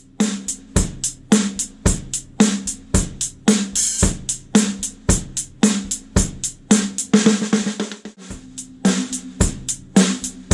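Drum kit played in a steady groove: bass drum about once a second, backbeat hits on a Pearl brass-shell free-floating piccolo snare with a bright crack, and a fast run of hi-hat or cymbal strokes.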